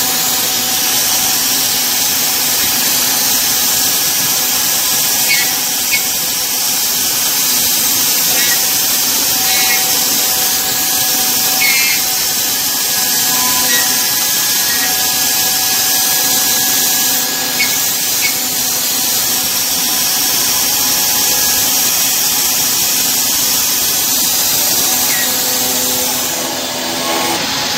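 A CNC scroll-cutting machine's router-bit spindle runs at speed, cutting curved shapes through a laminated pine board. It makes a steady whine over a hiss, with a few faint ticks.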